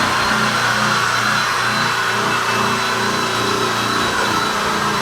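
A machine running steadily with a motor hum and an even pitch throughout.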